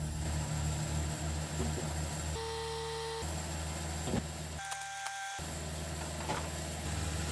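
An engine running steadily at a constant speed, interrupted by a few abrupt cuts, with a brief click a little past the middle.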